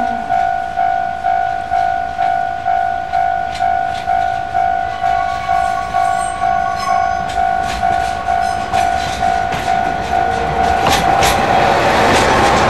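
A level-crossing warning bell dinging evenly, about twice a second. Near the end a Tarumi Railway TDE10 diesel-hydraulic locomotive running light passes close by, and the noise of its engine and wheels drowns out the bell.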